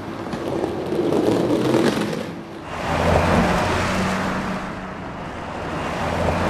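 Cars passing on a road: tyre and engine noise that swells and fades twice, with a short dip about two and a half seconds in.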